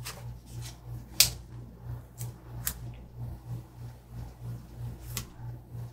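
Fingers handling a paper sticker sheet: about five short, sharp clicks and ticks, the loudest about a second in, over a low steady hum.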